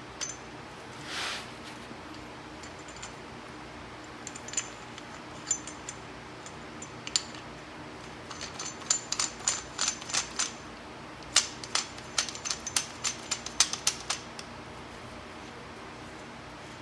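Steel adjustment ring being turned down the threaded body of a QA1 coil-over shock, giving irregular light metallic clicks and ticks that come in quick clusters from about four to fourteen seconds in. A steady low hum runs underneath.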